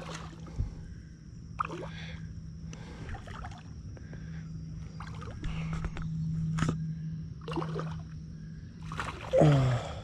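Stream water gurgling and sloshing against a kayak hull under a steady low hum, with scattered short rustles and knocks from handling a spinning rod and reel, including a sharp click about two-thirds through. A louder, lower burst comes near the end.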